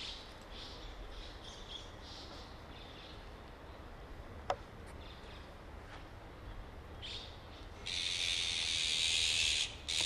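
Azure-winged magpies giving short harsh calls, with a loud rasping screech lasting nearly two seconds near the end: the agitated alarm calling of adults around a fledgling that has fallen into the shrubbery.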